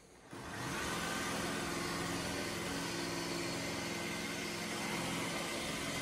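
iRobot Roomba s9 robot vacuum starting up: its motor spins up with a rising pitch about half a second in, then runs steadily with a hum over a hiss.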